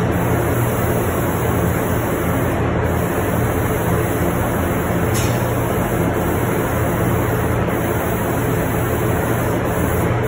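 Spray booth extraction fan running: a loud, steady rush of air with a low hum underneath, unchanged whether or not the gun is spraying.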